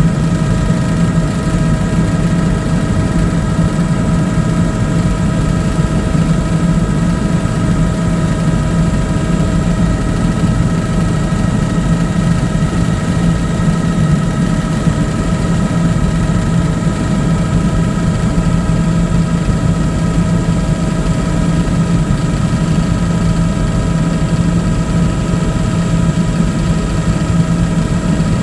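Helicopter in flight heard from inside the aircraft: a loud, steady engine and rotor drone with several steady whining tones over it.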